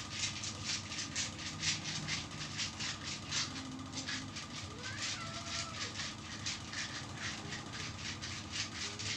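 Hands rubbing bare skin in quick, even back-and-forth massage strokes, about three to four strokes a second. A cat meows faintly a couple of times in the background.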